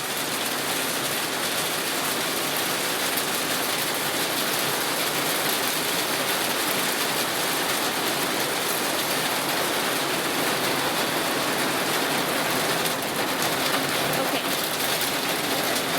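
Steady rain falling and pattering on surfaces, an even hiss with no pauses.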